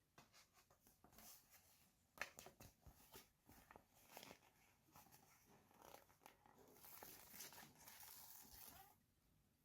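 Quiet handling of toys and packaging: scattered light clicks and taps of small plastic pieces, with a stretch of crinkly rustling about seven seconds in.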